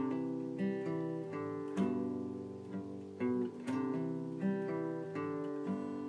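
Acoustic guitar music, with notes and chords picked one after another.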